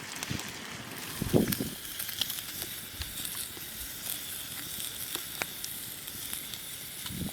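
Steady sizzling hiss with scattered sharp crackles, as of a campfire or cooking over one; a low thump about a second and a half in.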